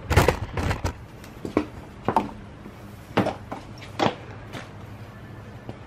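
Light knocks and clicks of handling: a quick cluster at the start, then single knocks every half second to a second, stopping near the end.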